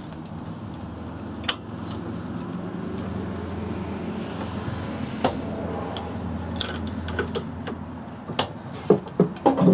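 A floor jack is being let down from under a truck door, with scattered clicks and knocks of metal and wood over a steady low hum. A run of louder, sharper knocks comes near the end.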